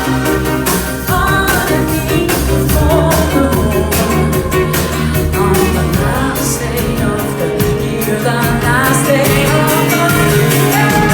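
Live pop-rock band playing a song: a singer's voice over guitar, bass and drums.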